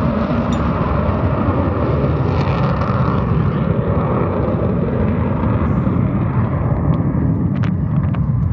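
Avro Vulcan bomber's four Olympus jet engines running in flight: a loud, steady rumble with a hiss on top. The hiss fades about six seconds in, leaving mostly the low rumble.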